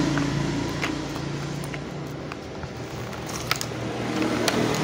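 Scissors cutting through a plastic mailer bag, with plastic wrapping crinkling and rustling as it is pulled open: irregular small snips and crackles, busier near the end, over a steady low hum.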